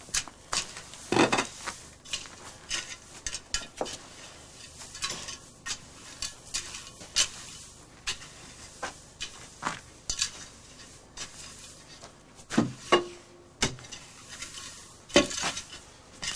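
Aluminium shovel scraping and scooping through a heap of ground tobacco at a snuff mill, giving irregular metallic scrapes and clinks as the blade digs and knocks.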